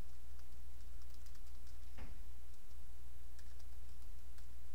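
Computer keyboard being typed on: soft, irregular key clicks, over a steady low hum.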